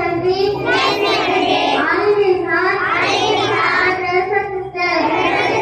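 Children singing a school assembly prayer together, led by a girl's voice through a microphone, in sung notes that bend and hold with a brief break near the end.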